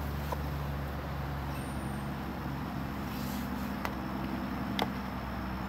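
A steady low engine hum that shifts slightly in pitch partway through, with two faint clicks about a second apart near the end.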